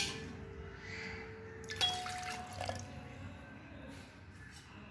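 Water poured from a small glass bowl into a stainless steel pot of lemon juice, salt and baking soda, splashing in with a sharp start, with another brief sound about two seconds in.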